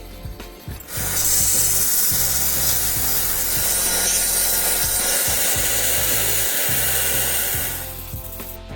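A power tool grinding steel: a loud, steady grinding hiss that starts about a second in and stops near the end, over background music.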